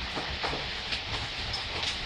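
Steady gentle rain, with individual drops tapping irregularly and close by over a low rumble.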